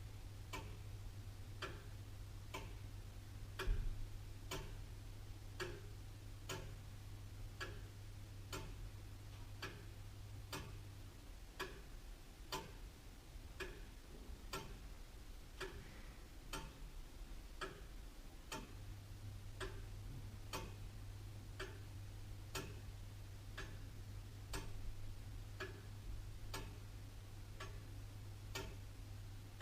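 Antique William Holliwell of Liverpool clock ticking steadily, somewhat faster than one tick a second. A faint low hum drops out in the middle and returns, and a single louder thump comes about four seconds in.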